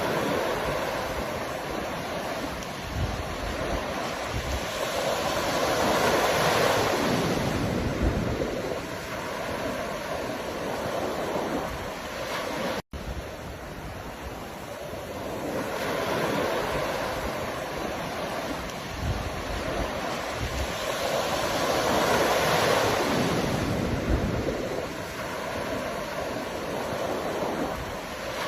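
Ocean surf: a steady rush of waves that swells and breaks, building twice to a loud peak about sixteen seconds apart. There is a split-second drop-out to silence about halfway through.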